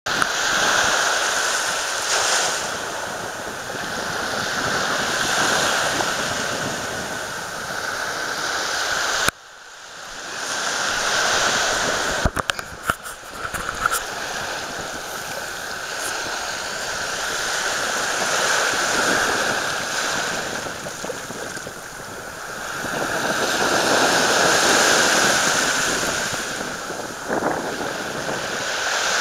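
Surf washing on a beach, the noise swelling and fading every few seconds. It drops out suddenly about a third of the way in, and a few sharp clicks follow a few seconds later.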